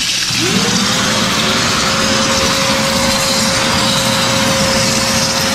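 Wet-and-dry vacuum switched on: its motor spins up with a quick rising whine, then runs at a steady pitch over a rushing hiss of air. It is sucking water and rubble out of a hole broken in the floor over a leaking water pipe.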